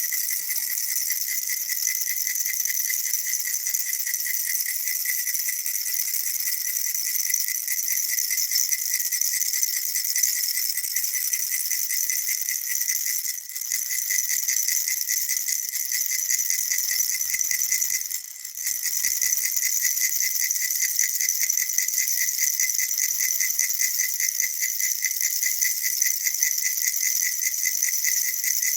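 Baby rattle shaken quickly and without pause, a dense, even rattling with a bright ringing edge. It breaks off for a moment twice, once a little before halfway and again a few seconds later.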